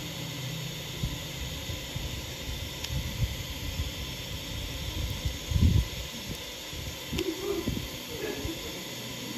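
Steady hiss with irregular low bumps and knocks, the loudest a thud about five and a half seconds in.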